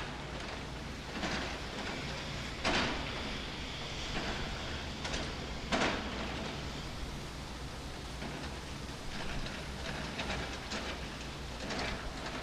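Train running past with a steady low hum and an even rushing noise, broken by sharp clacks about three seconds in and again about three seconds later, then a run of lighter ticks near the end.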